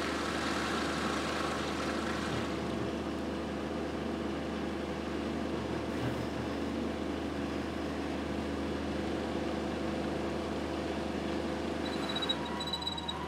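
The engine of a boat-mounted crane running steadily under load while it holds a lifted lock gate.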